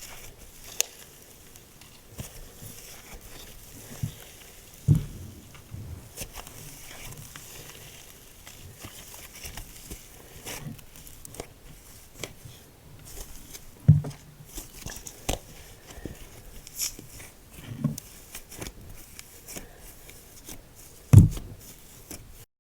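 Slime being squished and stretched by hand, giving a run of small crackly clicks with a few soft, low pops. The pops come about 5, 14 and 18 seconds in, and the loudest comes near the end.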